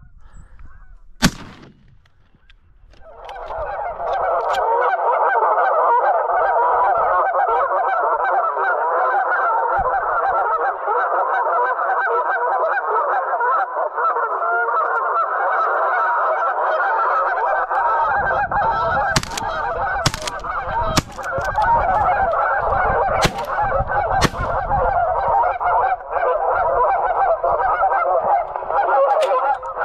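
Geese honking: a dense chorus of many overlapping calls that starts about three seconds in and keeps up steadily. A few sharp knocks and some low rumbling come in during the second half.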